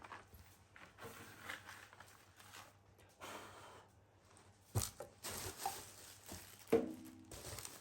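Packaging being handled and opened: rustling and tearing of paper or cardboard, with two sharp knocks, the second briefly ringing, about halfway through and near the end.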